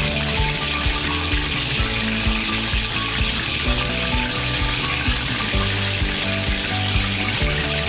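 Background instrumental music with a steady beat over a steady sizzling hiss of hot oil in a kadhai.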